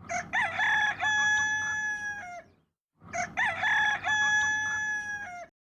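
A rooster crowing twice, the same crow heard two times in a row: each call rises through a few short notes into one long held note that drops off at the end.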